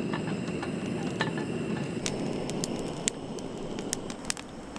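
Isobutane canister camp stove burning steadily under a lidded pot of water, a low rushing that eases slightly, with a few sharp light clicks scattered through it.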